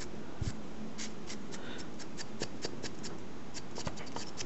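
Paint brush dry-brushing the raised tiles of a small model roof: light, irregular scratchy strokes of the bristles, a few a second, with one soft thump about half a second in.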